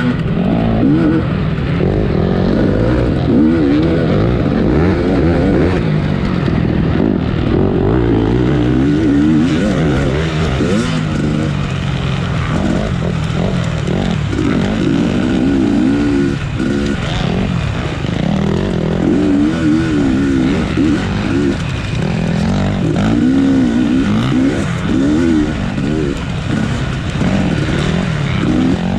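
A 250cc off-road racing motorcycle engine, heard from the rider's point of view, revving up and down continuously as the bike is ridden hard around the course.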